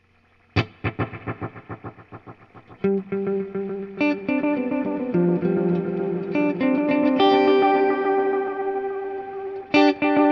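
Electric guitar played through an EarthQuaker Devices Disaster Transport SR modulated delay pedal. A sharp strum about half a second in sets off a quick train of fading echoes, then sustained chords ring with repeats stacking up, and another strum near the end starts a fresh run of echoes.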